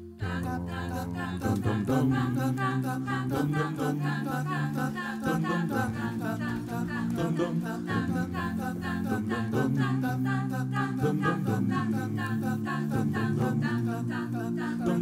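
A song's introduction that starts abruptly: held chords with wordless, choir-like singing over a fast, even pulse of repeated high notes.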